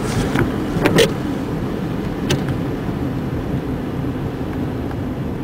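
Steady road and engine noise inside a car's cabin, tyres running on a wet road, with a few sharp clicks in the first couple of seconds.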